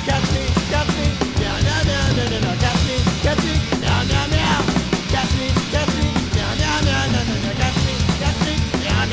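Punk rock song playing, with a drum kit.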